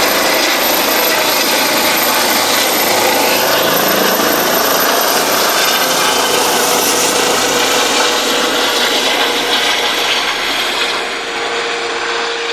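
Eurocopter EC135 air-ambulance helicopter climbing away low overhead after take-off: loud rotor and turbine noise that starts to fade near the end as it flies off.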